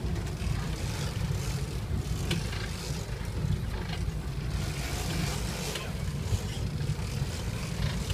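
A sport-fishing boat's engine runs steadily with a low rumble, under an even haze of wind and water noise.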